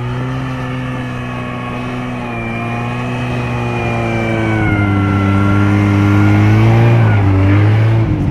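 Snowmobile engine running hard under load as it climbs a steep snowy slope, growing louder as it comes closer. Its pitch sags under the strain and recovers, then drops near the end.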